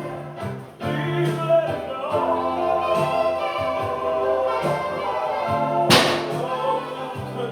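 Gospel music with a choir singing over a steady bass line, and a short sharp noise like a cymbal crash about six seconds in.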